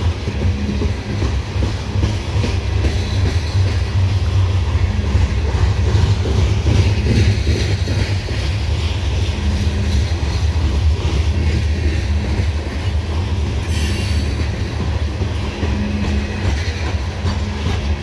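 Loaded coal hopper cars of a long freight train rolling past close by: a steady, heavy rumble of steel wheels on rail.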